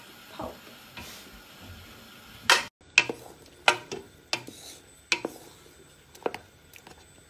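Wooden spoon stirring whole hawthorn berries in liquid in a metal jam pan. From about a third of the way in, the spoon knocks against the pan in a run of sharp clacks, roughly one a second.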